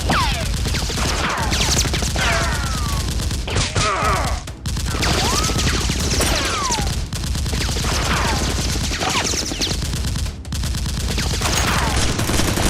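Continuous rapid gunfire, a fusillade of machine-gun-style sound effects, with falling whistling whines again and again over it.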